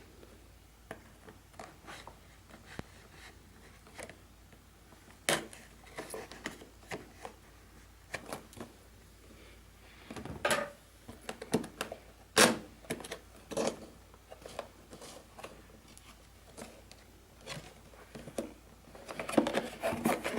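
A cardboard box being opened by hand and its packaging handled: scattered taps, scrapes and rustles. A few louder knocks come in the middle, and rustling grows denser near the end.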